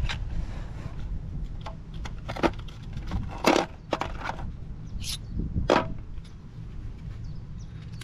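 Steel ratchet, extension bar and sockets of a 1/4-inch Proxxon socket set clicking and clinking against each other and the metal case as they are taken out and fitted together: about half a dozen sharp, irregularly spaced clacks.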